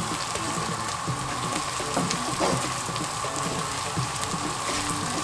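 Onion, chili and palm-oil sauce sizzling and crackling steadily in a non-stick frying pan as the onions caramelize, stirred with a wooden spoon.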